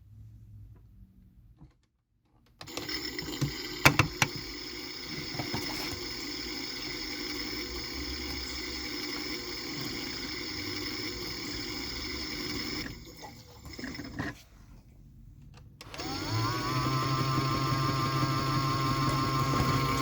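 AEG Lavamat washing machine at the start of an intermediate spin. After a quiet start the machine runs with a steady mechanical and water noise and a few sharp clicks. About three-quarters of the way through, the drum motor's whine rises and levels off with a low hum as the drum speeds up.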